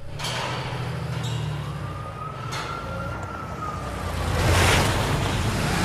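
Film-style car sound effects: a low engine rumble under whooshes that swell and fade, the loudest about four and a half seconds in, with a single slow rising-and-falling wail like a distant siren in the middle.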